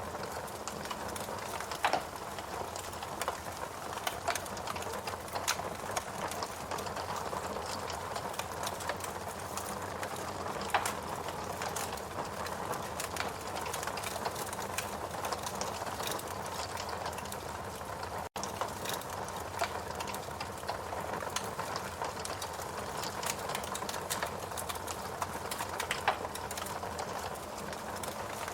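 Wood logs burning in a fireplace: a steady hiss of flame with frequent sharp crackles and pops, a few of them louder than the rest.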